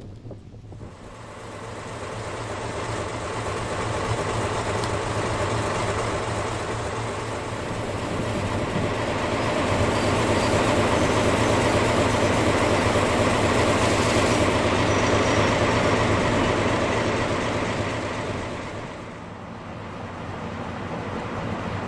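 A JNR Class DE10 diesel-hydraulic locomotive with its trolley coaches rolling slowly past at close range: a steady diesel engine note under the noise of wheels on rail. It builds over the first few seconds and is loudest through the middle, then drops away near the end as the train moves off.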